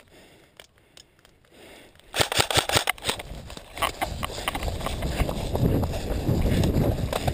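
Airsoft gun firing a rapid burst of sharp shots about two seconds in, with a few more shots a little later, then loud rustling and movement noise.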